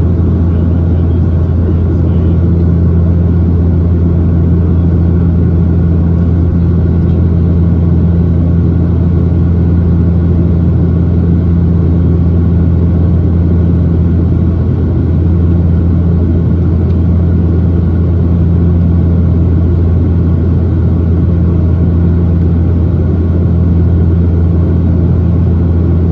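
Steady, loud low drone of a Dash 8-400's turboprop engines and propellers, heard inside the passenger cabin.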